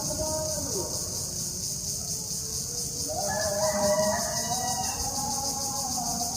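A rooster crowing once, about halfway through, one call lasting about two seconds.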